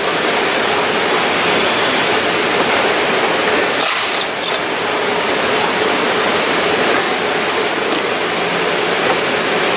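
Steady, even rushing noise with no pitch to it, like air moving, and a short rattle about four seconds in.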